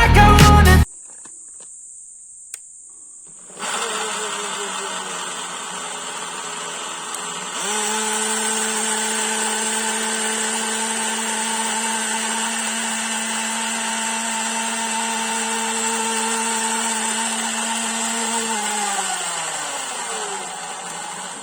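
Atomberg MG1 mixer grinder's BLDC motor starting at a low speed, stepping up to a higher, steady speed, then spinning down and stopping near the end. A single click comes before it starts.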